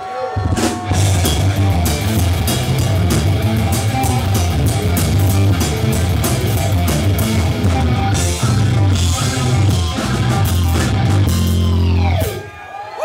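Rock band playing live at full volume: electric guitar, bass guitar and drums with frequent cymbal crashes. The band cuts off about twelve seconds in, leaving a tone that dives down in pitch.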